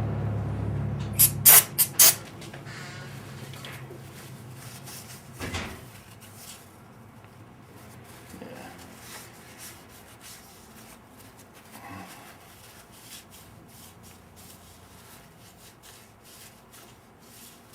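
A few short hissing sprays of aerosol cleaner, about a second and a half in, then faint intermittent rubbing as a rag wipes down a bare Ford 302 V8 engine block.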